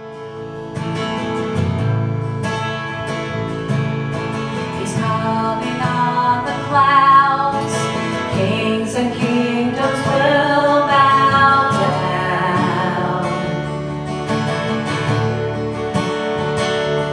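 Live worship band opening a song: strummed acoustic guitar and electric bass, with a woman's voice singing over them from about five seconds in.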